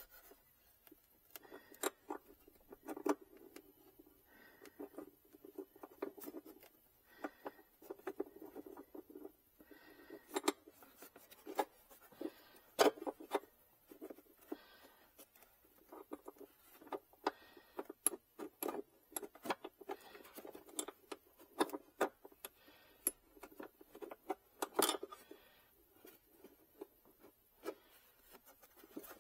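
Hands working at a car battery as it is fitted: irregular clicks, taps and scraping of tools and parts, with a few sharper clicks about 13 and 25 seconds in.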